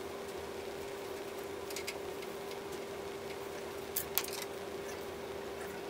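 A steady electrical-sounding hum at one constant pitch under a faint hiss. Over it come a few light clicks and taps from a screwdriver being handled, two of them about four seconds in as it is set down on a table.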